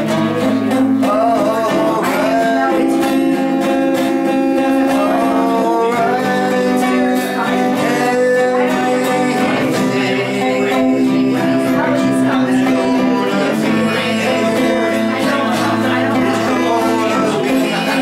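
Twelve-string acoustic guitar strummed and picked, over long held bass notes from a keyboard played with the feet.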